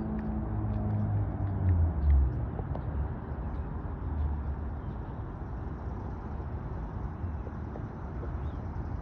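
Low rumble and steady noise of a distant Amtrak train running away down the tracks, loudest in the first couple of seconds and then settling, with a few faint clicks.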